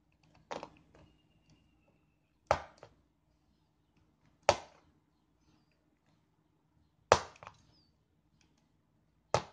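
Snap-off utility knife blade being pushed through a taut stretched canvas to cut crisscross slits, giving five short, sharp sounds about two seconds apart.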